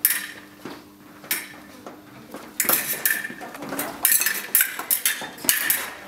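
Fencing foil blades clinking and clashing, metal on metal, in a few single hits and then a quick flurry of strikes from about two and a half seconds in.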